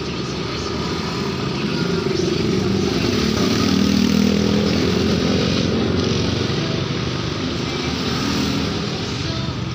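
Engine noise of a motor vehicle, growing louder to about four seconds in and then easing off.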